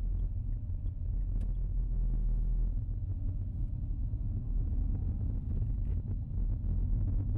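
Low, steady rumble of a car driving, heard from inside its cabin.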